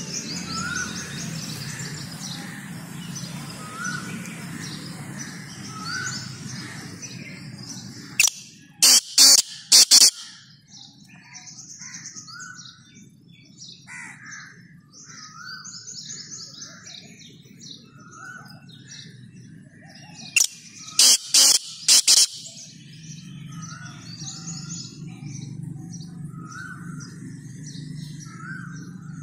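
Black francolin calling twice, about twelve seconds apart. Each call is a single loud note followed by a quick run of about four loud notes, over steady chirping of small birds and a low hum.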